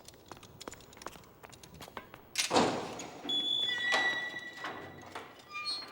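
Faint clicks and taps, then a single heavy thud of a large door about two and a half seconds in, followed by a few held high notes of film score.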